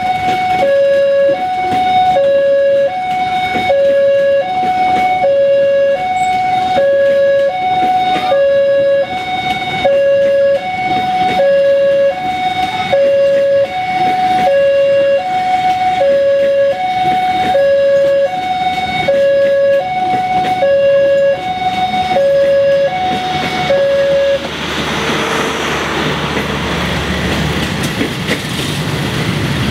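Railway level-crossing warning alarm sounding a steady alternating two-note electronic tone, high then low about once a second, over the rumble of a passing passenger train. The alarm stops about 24 seconds in, and motorcycle engines and traffic noise follow as the road reopens.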